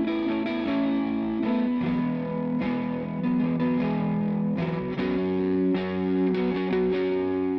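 Instrumental intro of a rock ballad: sustained electric guitar chords played through effects, changing chord about two seconds in and again near the five-second mark, before the vocals begin.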